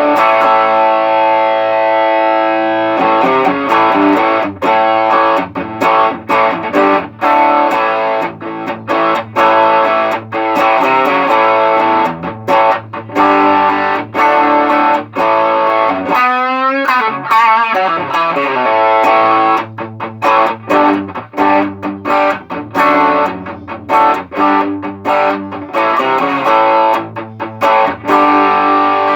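Electric guitar played through an Ibanez TS808 Tube Screamer overdrive pedal, the pedal working after a repair to its switching circuit. It opens on held overdriven chords, then turns to short, choppy chords, with a wavering slide in pitch about halfway through.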